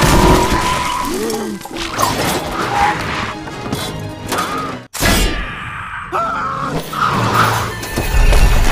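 Animated-film crash sound effects over orchestral score: a loud crash at the start, a short silence just before five seconds then another sudden crash, and a heavy low impact near the end.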